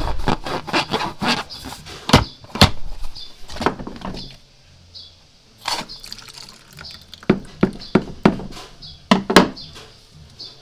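Irregular series of sharp clicks and knocks, close together in the first couple of seconds, then sparser, with a few louder knocks spread through the rest.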